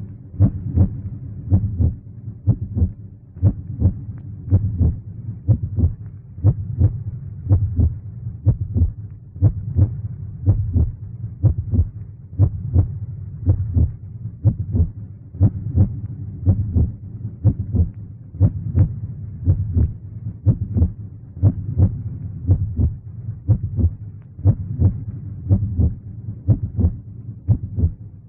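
Heartbeat sound effect: a steady, even rhythm of deep, low thumps in lub-dub pairs, repeating without a break.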